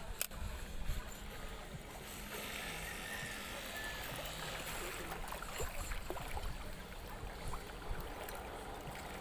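Wind buffeting the microphone over small waves lapping and gurgling against shore rocks, with a few small clicks.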